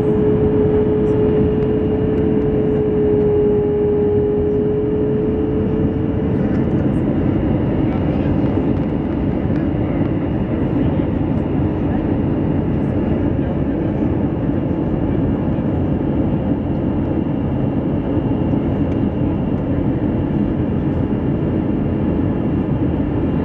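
Jet airliner in flight heard from inside the cabin beside the wing's turbofan engine: a steady, loud rumble and rush of engine and airflow. A steady hum rides on it at first and fades out about six seconds in.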